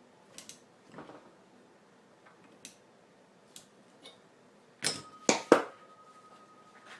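Metal tools and engine parts being handled: a few light clicks, then three sharp metal knocks in quick succession about five seconds in. The knocks leave a steady metallic ring.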